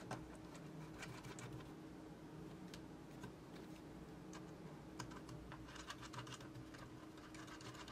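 Faint scattered clicks and taps of hands screwing antennas onto the SMA connectors of FPV goggles and handling the plastic housing, over a faint steady hum. The clicks come in a small cluster about a second in and a busier run about five to six and a half seconds in.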